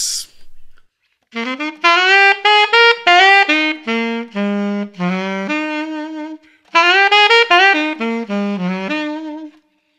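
Alto saxophone playing a bluesy bebop lick in two phrases, the same idea twice in a row, the second starting a little before halfway; each phrase runs through quick notes and settles on longer low notes, resolving to the major third.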